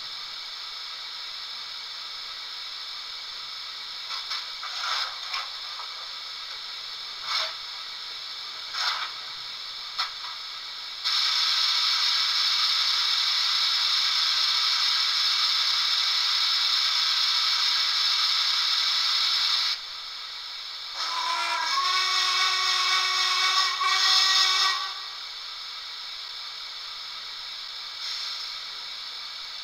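Sound-equipped Hornby DCC model steam locomotive playing its standing sounds through a small speaker over a steady background hiss. A few light clanks come between about four and ten seconds in, then steam blows off loudly for about nine seconds and stops. After a short gap a steam whistle sounds for about four seconds, stepping in pitch at its start.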